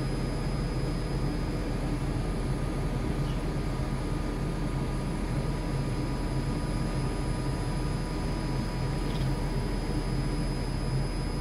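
Freight train of loaded car-carrier wagons rolling past, a steady rumble with a few constant hums.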